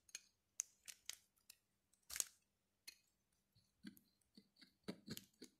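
Faint, irregular clicks and light scrapes of a metal spoon against a ceramic plate as ground hibiscus is stirred into honey and sugar, with a sharper click about two seconds in.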